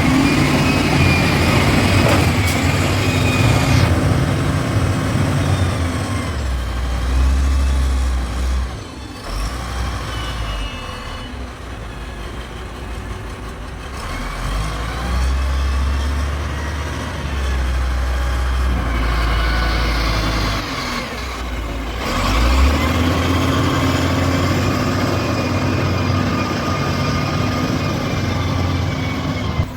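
Heavy diesel machinery engines running and revving as they work, the low rumble swelling and easing, with a few abrupt changes where the footage cuts between shots.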